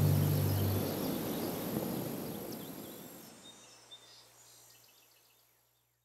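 A low steady hum cuts off within the first second, leaving outdoor ambience with scattered faint bird chirps that fades out to silence.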